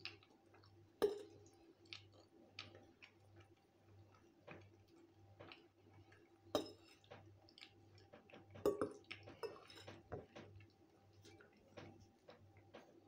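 A salt shaker being shaken over a plate of food: faint, irregular ticks and clicks as it is shaken, with a few louder clicks about a second in, near the middle and a little after.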